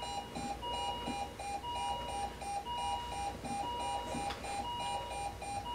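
Bedside patient monitor alarming: rapid short beeps with a longer electronic tone repeating about once a second. The heart rate on its screen reads 174, in a simulated ventricular tachycardia.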